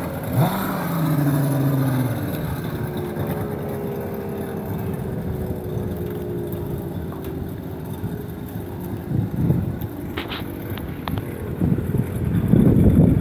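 Speedboat outboard motor running at speed as the boat pulls away, its engine note falling in pitch and then slowly sinking and fading. A louder rushing noise comes in near the end.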